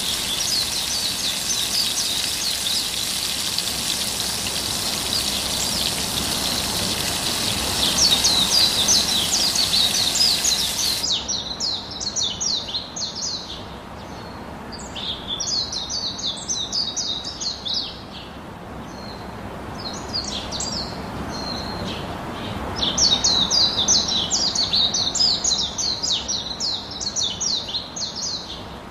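Small birds chirping in quick runs of short notes, bursts of a few seconds repeating with short gaps. For the first ten seconds or so a steady sizzling hiss from chicken frying on the hot grill plate runs underneath, then cuts off suddenly.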